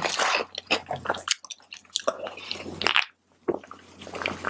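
A person chewing a mouthful of tofu fried rice, with irregular wet mouth clicks and squishes and a brief pause about three seconds in.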